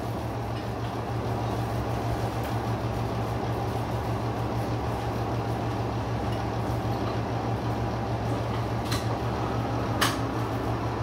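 A steady mechanical hum with an even whooshing noise, broken by two short sharp clicks about a second apart near the end.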